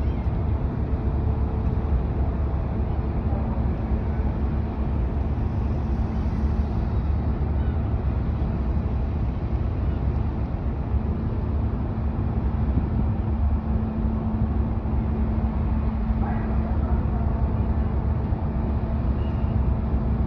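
Steady low rumble of the Tokiwa Maru car ferry's engines running while it manoeuvres into its berth, with a constant droning hum over the rumble.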